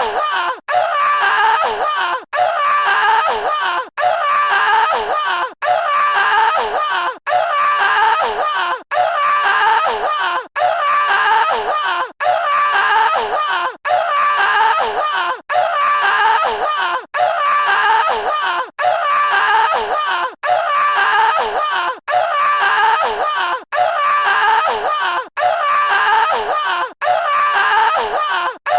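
A short stock sound effect of a wavering, scream-like voice, looped over and over with a brief gap about every second and a half.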